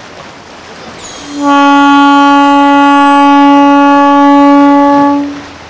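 A boat horn sounding one long blast of about four seconds, a single steady note with bright overtones, starting a little over a second in.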